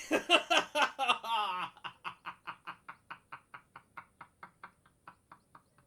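A man laughing: a loud burst of laughter, then a long run of short, evenly spaced laughs, about four a second, fading away.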